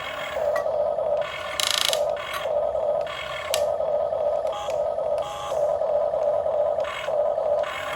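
Remote-control toy excavator's small electric gear motors whirring in short runs, starting and stopping over and over, with one brief harsher burst about two seconds in.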